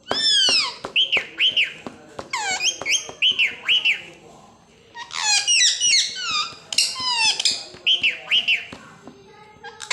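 Pet parrot calling in several bursts of quick, high chirps and squawks that bend down and up in pitch, with a few short clicks between them.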